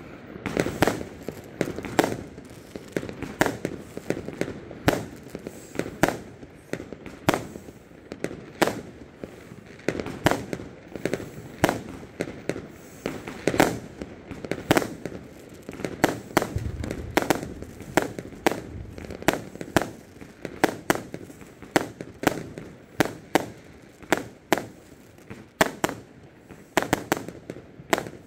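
Fireworks going off: aerial shots launched in quick succession and bursting overhead, a steady irregular run of sharp bangs about one or two a second.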